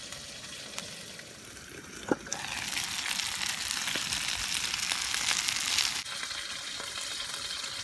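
Food sizzling in frying pans. A quiet sizzle under an omelette gives way, after a click about two seconds in, to gyoza frying and steaming with a louder, brighter hiss. The hiss drops off suddenly about six seconds in, leaving a fainter sizzle.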